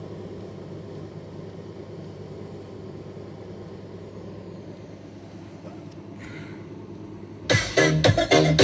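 A steady low hum, then electronic dance music starts suddenly and loudly about seven and a half seconds in, played through a Zeck G-10-1000 amplifier and speaker being tested after repair.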